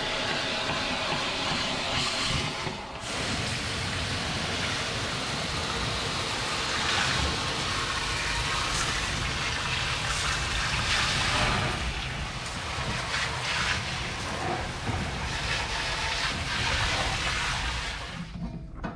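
Fresh water from a hose spraying and splashing onto the metal floor of an aluminium boat bilge, a steady rushing hiss that shifts as the spray moves. There is a short break about three seconds in, and the spray stops just before the end.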